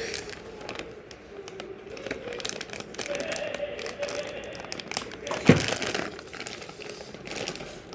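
Crinkling plastic being handled, with scattered small clicks and one sharp knock about five and a half seconds in.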